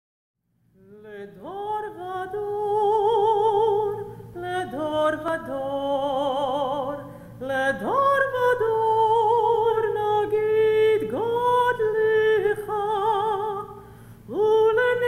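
Solo mezzo-soprano singing: several phrases of long held notes with wide vibrato, each note entered with an upward slide, beginning about a second in.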